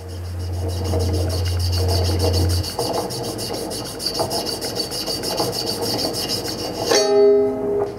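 Rough rubbing and scraping as a large wool-covered figure is pushed and rolled across a stage floor, over a low hum that cuts off about two and a half seconds in. Near the end a short, loud pitched tone sounds.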